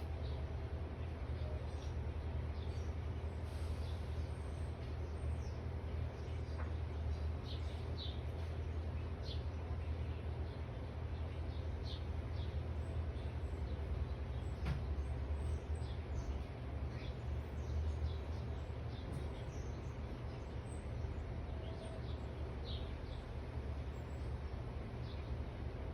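Backyard birds chirping: short, high calls scattered throughout, over a steady low rumble.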